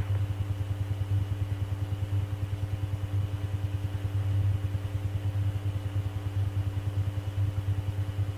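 Steady low electrical hum with a fainter higher whine, fluttering rapidly in level: the background noise of a recorded air traffic control radio channel between transmissions.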